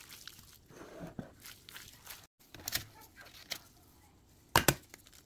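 Gloved hands squishing and turning raw, seasoned chicken pieces in a glass dish, with soft wet squelches and glove rustles. Near the end, two sharp knocks in quick succession, the loudest sounds.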